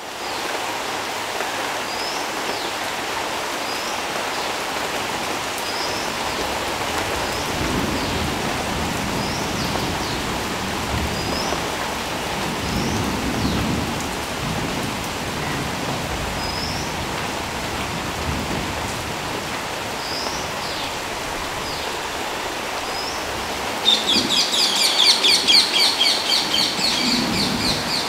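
Steady rain falling on leaves and wet ground, with a bird's short high chirps repeating every second or two. Near the end a louder, rapid trilling call comes in over the rain.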